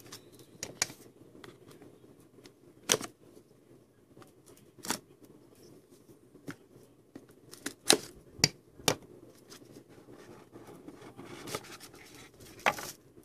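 Hands opening a sealed trading-card box and handling what is inside: scattered sharp clicks and taps with soft rustling between them, and a longer stretch of rustling near the end.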